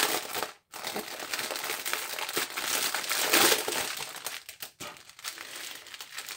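Clear plastic packaging crinkling and rustling as hands open a bag and pull out strips of sealed diamond-painting drill packets. The rustle is loudest a little past halfway.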